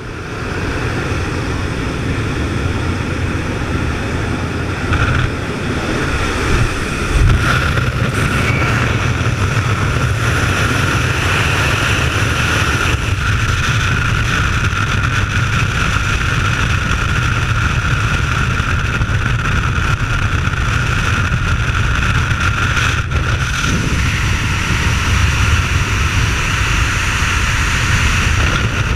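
Jump plane's propeller engines and the rush of air in the open cabin, going on to steady wind blasting past the helmet camera as the skydivers climb out and fall.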